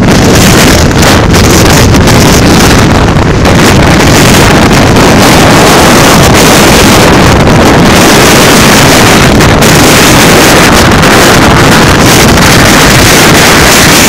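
Strong wind buffeting a phone's microphone: a loud, steady rush of noise that covers everything else.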